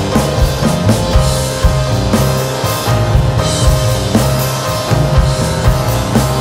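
Instrumental rock music from a trio, with a busy drum kit hitting steadily over sustained low notes.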